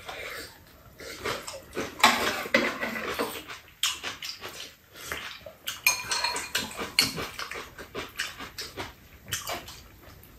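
People chewing fried rice, with irregular clicks of spoons and chopsticks against bowls.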